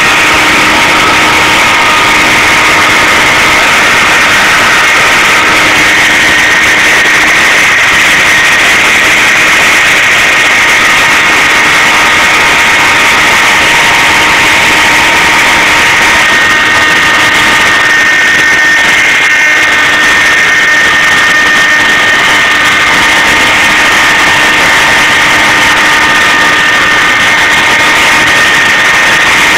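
CNC machine running, a loud steady whine with several held tones over a mechanical hiss; the pitch of the tones shifts slightly twice.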